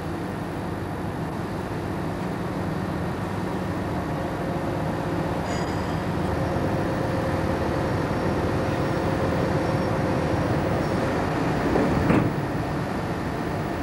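Steady mechanical rumble of a Liebherr LTM 1800 mobile crane working a lift, growing slightly louder, with a faint steady whine in the middle. A short knock sounds about twelve seconds in.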